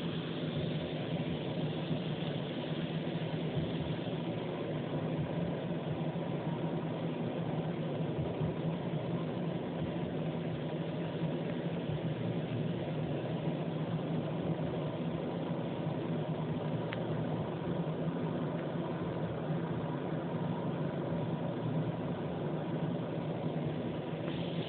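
Steady low machine hum with a hiss above it, unchanging throughout.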